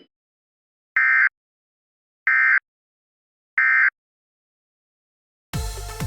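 Emergency Alert System SAME end-of-message code: three short bursts of digital warbling data tones about 1.3 s apart, marking the end of the alert. Electronic dance music starts suddenly near the end.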